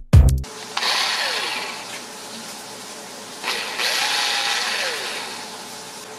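Bosch GSB 9.6 VE cordless drill with its chuck removed, the motor run twice on the trigger: a short run about a second in and a longer one a couple of seconds later. Each time the motor winds down with a falling pitch when the trigger is let go.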